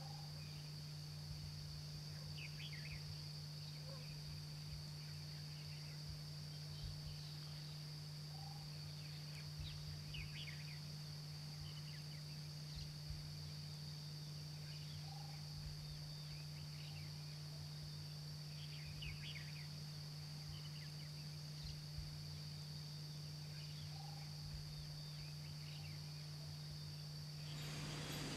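Faint field ambience: a steady low hum and a steady high-pitched whine, with short faint bird chirps every few seconds. Just before the end a louder hiss comes in.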